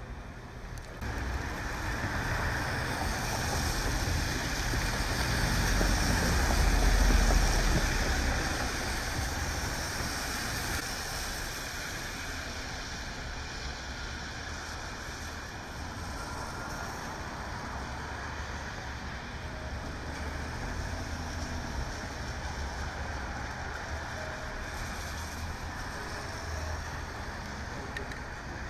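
Rain and car tyres hissing on wet pavement as traffic passes. It swells to its loudest, with a low rumble, about seven seconds in, then settles to a steady hiss.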